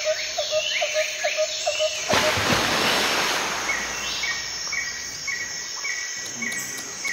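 Night-time chorus of insects and other small calling animals over a steady hiss: short low chirps about four a second, then, after an abrupt change about two seconds in, a higher short call repeated about twice a second.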